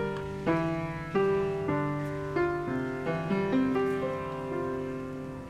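Background piano music: a slow melody of single notes struck about every half second, each ringing and fading away.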